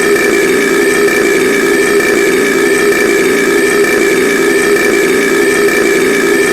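A man's long, drawn-out burp, unbroken and steady in pitch and loudness, with a rough, evenly pulsing rasp.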